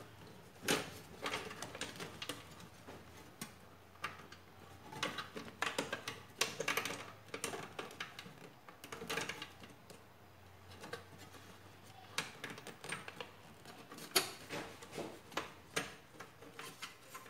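Irregular clicks, scrapes and rustles of hands pushing cable connectors and an IDE ribbon cable into place against the sheet-metal drive bay of a PC case, with a sharper click about a second in and again near the end.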